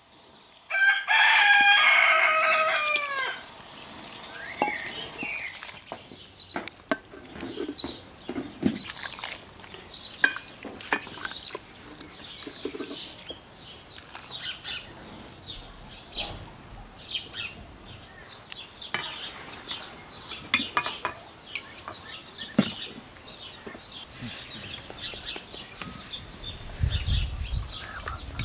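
A rooster crows once, a loud drawn-out cock-a-doodle-doo about a second in. Afterwards there are only scattered light clicks and short high chirps.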